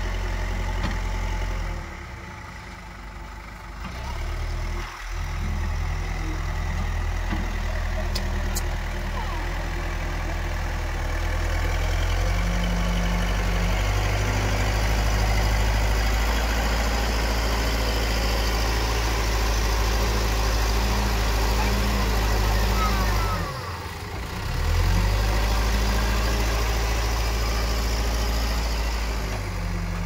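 Backhoe loader's diesel engine running hard under load as the front bucket pushes into and lifts soil. The revs drop briefly a couple of seconds in and again near the end, then climb back up.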